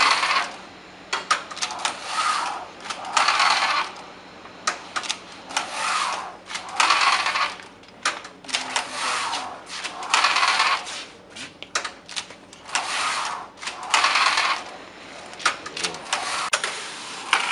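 Flat knitting machine carriage being run back and forth across the needle bed, a rasping pass about every one and a half to two seconds, with sharp clicks as it stops and turns at each end.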